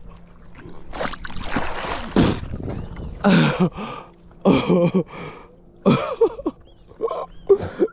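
A loud splash of seawater lasting about a second as a man falls off a rock into the shallow sea, followed by a string of short gasps and grunts from him.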